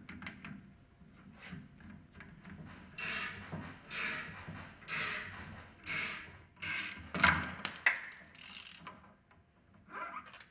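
Ratchet wrench clicking in repeated strokes, about one a second, as it turns the forcing screw of a two-jaw bearing puller to draw a ball bearing off a centrifugal pump shaft.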